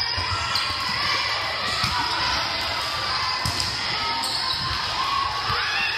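Balls thudding on a gym floor again and again during a scrimmage, echoing in a large hall over a background of distant voices.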